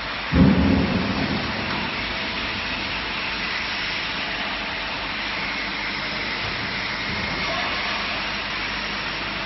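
Batch frying line machinery running with a steady hiss and rumble. About half a second in, a single heavy low thump rings on for about a second.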